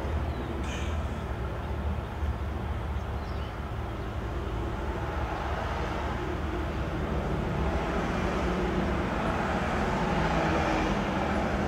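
Steady low rumble of road traffic, getting louder toward the end.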